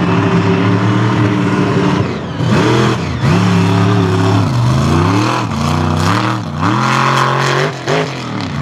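Mega mud truck engine running at high revs, held steady at first. From about two seconds in it revs up and drops back over and over as the throttle is worked through the mud course.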